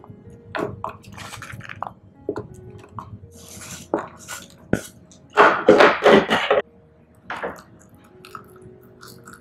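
Chocolate wafer crumbs being dropped into a plastic popsicle mould and scraped off a wooden board: irregular light taps, clicks and crumbly rustling, with a dense crackly burst of scraping about five and a half seconds in. Near the end, a thick avocado mixture is poured into one of the cups.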